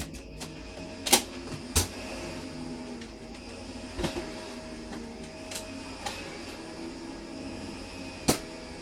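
Sharp clacks and knocks of Nerf blasters being fired and foam darts hitting things. Four louder ones are spread out (about one, two, four and eight seconds in), with fainter clicks between, over a faint steady hum.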